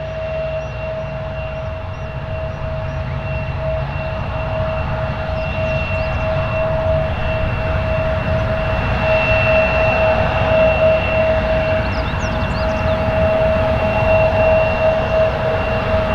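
Boeing 737-800's CFM56-7B jet engines running, a broad rumble with a steady high whine, growing gradually louder.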